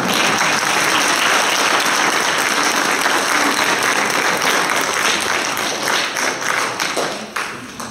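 Audience applauding: steady clapping from many hands, dying away near the end.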